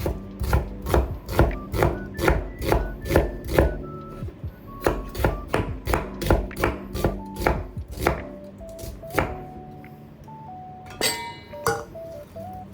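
Knife slicing an onion on a cutting board: a quick, even run of cuts, about two or three a second, with a short pause about four seconds in. The cuts stop after about nine seconds, and a few last ones come near the end.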